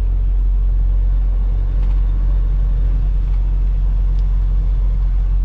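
Freightliner semi-truck's engine and road noise heard from inside the cab while it drives, a steady low drone.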